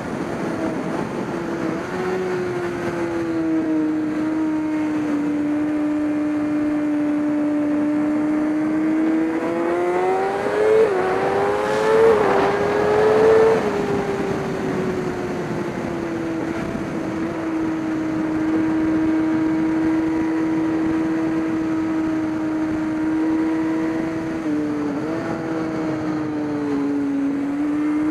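Racing engine running at fairly steady revs, climbing with a few quick steps about ten to thirteen seconds in, then easing back to steady running.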